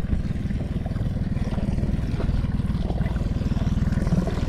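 Yamaha outboard motor idling with a low, even running note.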